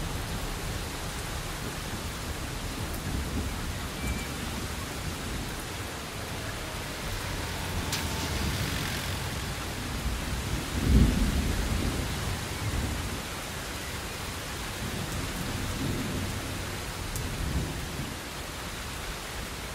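Steady rain falling, with several low rumbles rising and fading over it, the loudest just past halfway, and a brief sharp crack a little before that.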